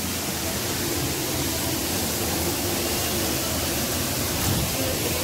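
Steady rushing of a stream cascading over boulders into a rocky pool.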